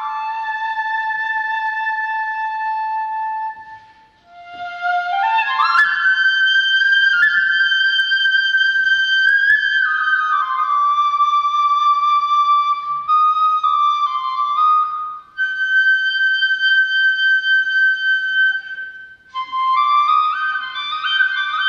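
Shinobue (Japanese bamboo transverse flute) playing alone: long held notes with short breath gaps between phrases, a quick rising run of notes about four seconds in, and a string of quick stepped notes near the end.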